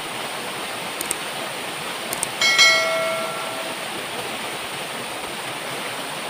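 Small waterfall pouring into a pool, a steady rushing noise. A few faint clicks come about a second and two seconds in, and a bright ringing chime sounds for about a second at around two and a half seconds.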